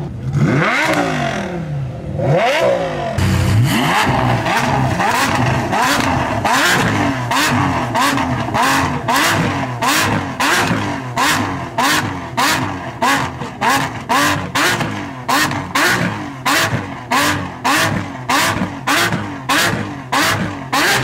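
Lamborghini Aventador SVJ's V12 revved at a standstill in short, repeated blips, about two a second and getting quicker toward the end, each ending in a sharp crackle from the exhaust. A few longer revs, rising and falling, come first.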